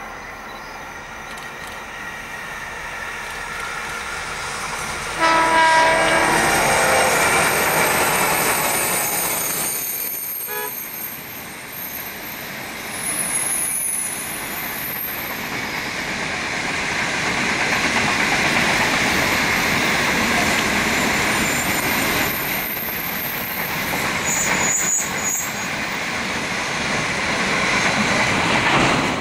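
A diesel-hauled freight train with a long rake of hopper wagons passes, the locomotives sounding one multi-tone horn blast about five seconds in. The wagons run by with steady rolling noise, and brief high wheel squeals come from the curve twice.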